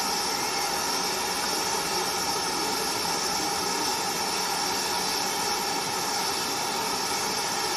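Steam hissing steadily from a standing GWR 5600 class 0-6-2 tank locomotive, No. 5643.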